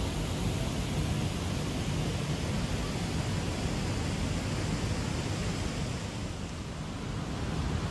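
Steady outdoor ambient noise, a low rumble with an even hiss over it, dipping slightly about six seconds in.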